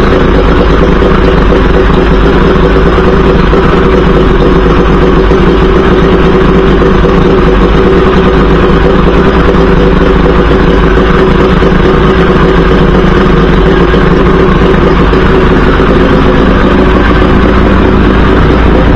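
50 hp Mercury two-stroke outboard with Thunderbolt ignition running steadily on flushing muffs, out of the water, shortly after a key start. It holds one even speed throughout, with no revving.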